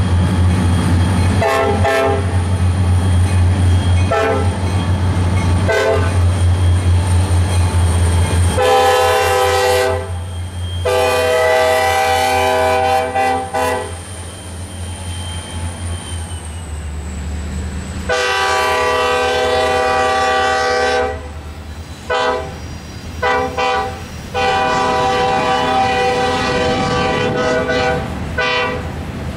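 Norfolk Southern diesel locomotives approaching and passing with a deep engine drone, sounding the air horn. A few short toots come first, then a series of long blasts with a couple of short ones between them.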